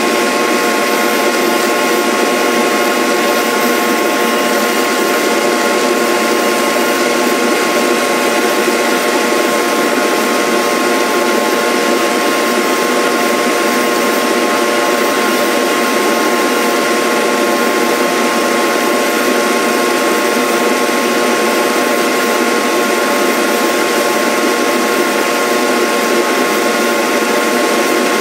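A small electric motor running at a steady speed with an even whine and hiss, its pitch unchanging: the powered cutter of a rose engine lathe at work cutting an ornamental pattern.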